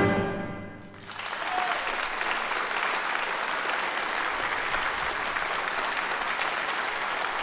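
An orchestra's final chord dies away in the hall's reverberation, and about a second in the audience breaks into steady applause.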